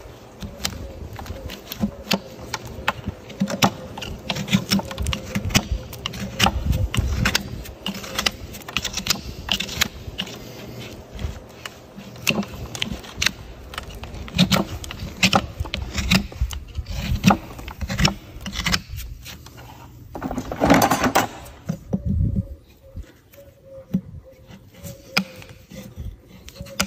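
Farrier's hand tools on a shod horse hoof: irregular metal clicks, taps and scrapes as the shoe is worked loose and pried off with shoe pullers, with a longer scrape about twenty seconds in.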